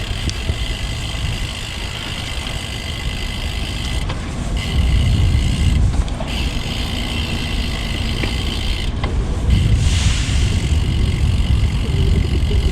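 Wind buffeting the microphone and tyre rumble from a road bike being ridden, loud and continuous, with a steady high hiss that cuts out briefly a few times.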